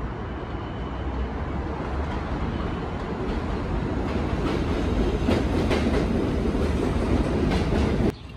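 New York City subway train pulling into an elevated station, growing steadily louder as it comes alongside, with its wheels clacking over the rail joints. The sound cuts off suddenly near the end.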